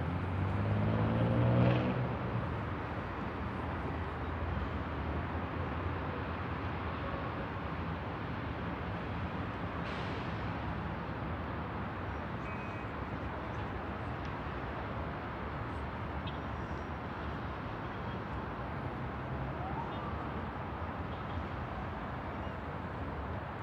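A steady hum of city traffic on the roads below. In the first two seconds one vehicle's engine revs up, rising in pitch and growing louder before fading back into the hum.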